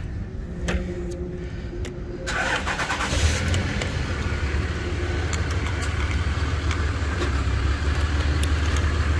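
A motor vehicle engine starts a little over two seconds in and settles into a steady, low idle. A few light clicks of tools come before it.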